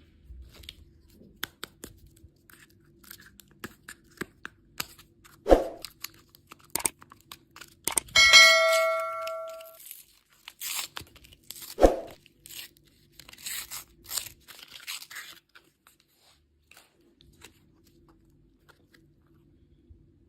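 Close-up handling of candy packaging: scattered clicks and rustles of wrappers being torn open, two low thumps, and about 8 seconds in a ding that rings for about a second and a half before fading.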